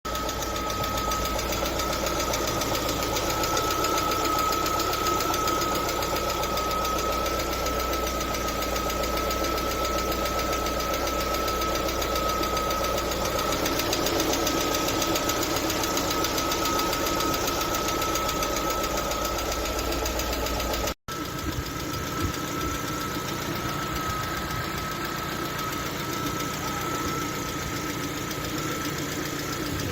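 LADA Vesta engine running with a steady ticking knock from its hydraulic lifters. The knock comes from oil pressure that jumps about because the oil pickup's sealing ring is torn. The sound breaks off for an instant about two-thirds of the way through, then carries on with less low rumble.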